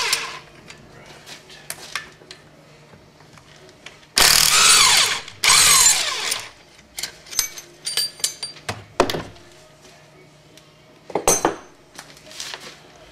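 A power tool spins bolts off an automatic transmission case in loud bursts of about a second, two back to back around four and five seconds in and a shorter one near eleven seconds. Metal clinks of loose bolts, parts and tools fall between the bursts.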